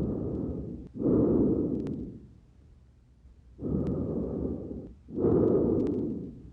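Breath sounds heard through a stethoscope on the front of the chest: two breaths, each a rushing noise in and then out, with a quiet pause of about a second and a half between them.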